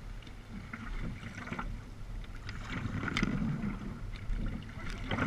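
Kayak paddles dipping and splashing in the sea with each stroke, over a steady low wind rumble on the microphone.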